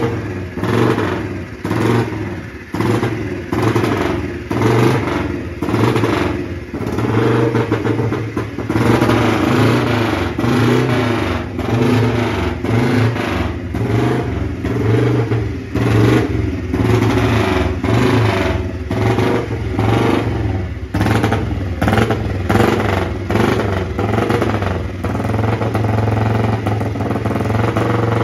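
1960 Norton Manx 30M's 500cc single-cylinder engine running, the throttle blipped again and again so the revs rise and fall. It settles to a steadier run near the end.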